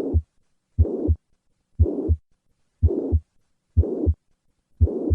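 Heart of a patient with mitral regurgitation heard through a stethoscope, beating about once a second. Each beat has a first and second heart sound, with a blowing murmur filling the whole gap between them at an even level: a plateau-shaped holosystolic murmur.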